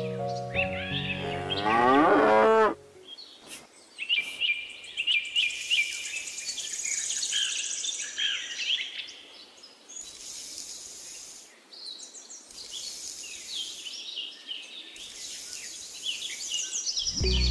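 A cow moos, one long call of about three seconds, then birds chirp and twitter steadily at a lower level. Another moo begins near the end.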